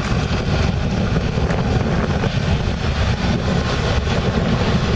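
Iveco Stralis truck's diesel engine running steadily as the truck reverses slowly, heard as a steady low rumble mixed with a fluttering noise like wind on the microphone.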